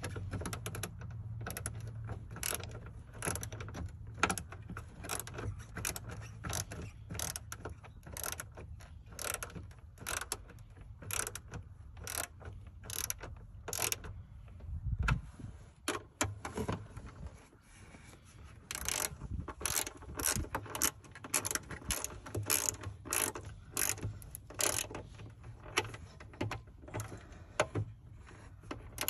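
Ratcheting hand tool clicking stroke after stroke as the screws of a new rear car speaker are tightened down, with a brief pause about two-thirds of the way through.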